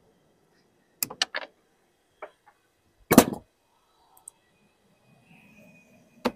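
A few separate sharp knocks and one heavier thud from hand tools working lead flashing on a dormer cheek: three quick knocks about a second in, the loudest thud a little after the midpoint, and two more knocks at the very end.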